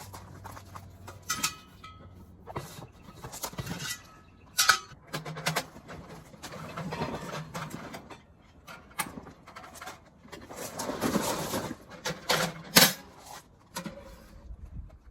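Objects being handled: a run of irregular knocks and clicks, with two stretches of rustling, the louder one about ten seconds in.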